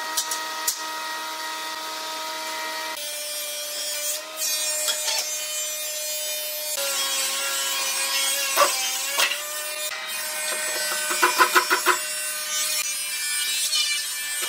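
Makita cordless drill driving screws into wood in short bursts. The loudest is a quick run of pulses a few seconds before the end. Background music with steady chords plays throughout.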